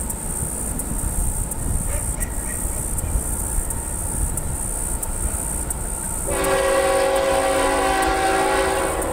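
Horn of an approaching Norfolk Southern ET44AC diesel locomotive sounding one long chord blast, starting about six seconds in, over a steady low rumble.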